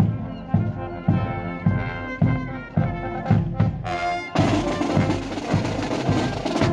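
Brass marching band playing a march, a drum beat landing about twice a second under the brass. The music grows fuller and brighter about two-thirds of the way through.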